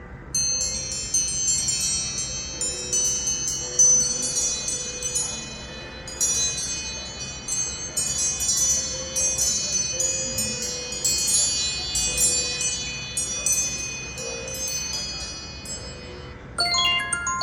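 iPhone 14 Pro Max ringtone playing through the phone's speaker: a run of high, bell-like chime notes that starts just after the beginning and stops about a second before the end. There a different ringtone begins, with lower, short repeated notes.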